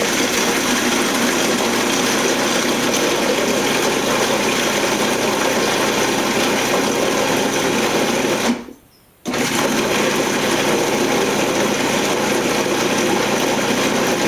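Food processor motor running steadily, blending a liquid marinade of oil, soy sauce, garlic and herbs. It cuts out for under a second a little past halfway, then starts up again.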